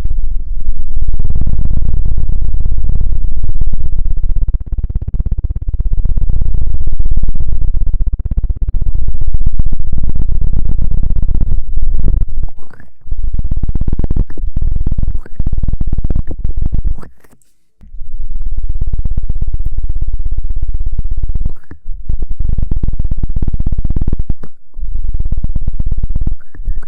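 Loud, deep rumbling scratch sounds close against the microphone. They come in stretches of a few seconds with short breaks between them, the longest break a little past halfway.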